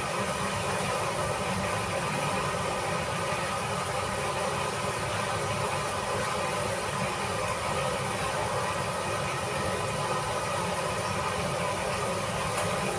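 Steady, even hissing rush of cooking at a kitchen stove, with no breaks or distinct knocks.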